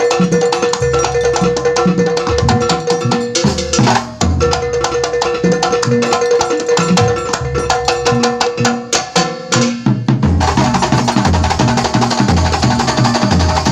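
Live kuntulan percussion: Banyuwangi frame drums (terbang) over deep bass-drum thuds, beating a fast, dense interlocking rhythm with a steady held note above it. About ten seconds in, the playing changes to a denser, brighter section.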